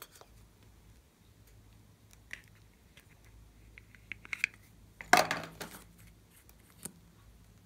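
Small plastic containers handled by hand: faint ticks and rustling, then one sharp plastic clack with a brief rattle about five seconds in, and a small click near the end.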